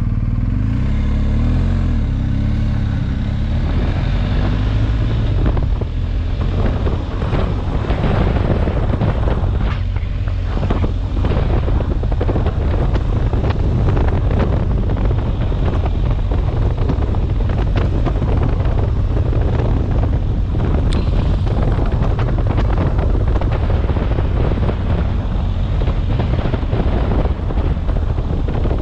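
BMW R 1250 GS boxer-twin motorcycle engine running steadily while riding a gravel track, its tyres crackling over loose stones, with heavy wind buffeting on the helmet camera's microphone.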